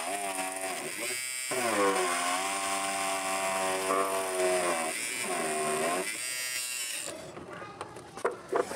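A small electric motor whirring, its pitch sagging and rising with two brief dips, stopping about seven seconds in; a few sharp handling clicks near the end.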